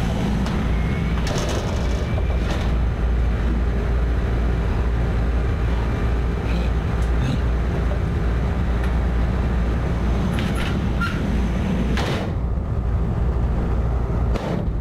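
Rooftop packaged AC unit running with a steady low drone. Several short metallic clicks and knocks come through it as its sheet-metal access panel is fitted back on and screwed down.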